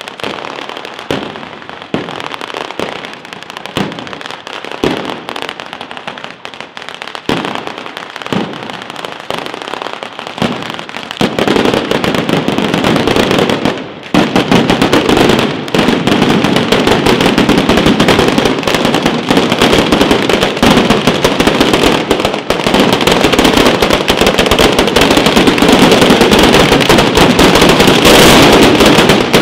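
A street-laid batteria alla bolognese of firecrackers going off: separate loud bangs about once a second over a steady crackle, then about eleven seconds in the chain breaks into a dense, continuous rattle of explosions that keeps going.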